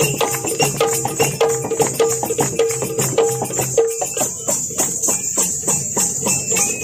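Dholki drum played in a fast, even rhythm, about four strokes a second. Its treble head rings on the strokes for the first four seconds or so, after which the strokes go on without the ring.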